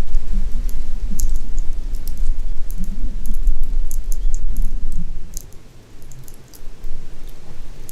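Campfire crackling, with scattered sharp pops and snaps, under a heavy low rumble; the rumble drops away for a moment a little past the midpoint.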